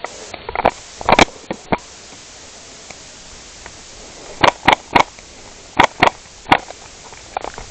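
Airsoft guns firing: about a dozen sharp cracks, single and in quick pairs and triplets, in irregular groups.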